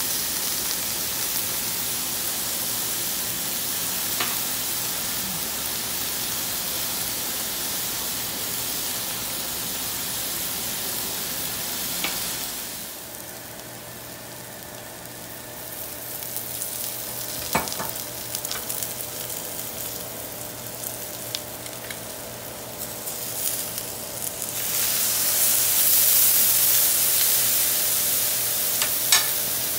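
Artichoke hearts sizzling as they sauté in a hot skillet, with a few sharp ticks. The sizzle drops to scattered pops and crackles in the middle, around when oil is poured in. It then rises to a loud hiss for the last few seconds as lemon juice hits the hot pan.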